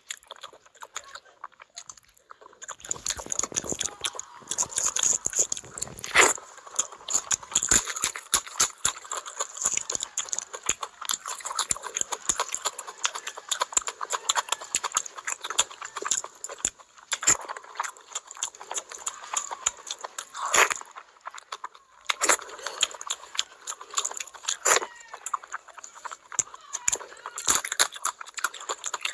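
Close-miked eating of curry and rice by hand: wet chewing and lip smacking, a dense patter of mouth clicks with a few louder smacks. It is quieter for the first couple of seconds.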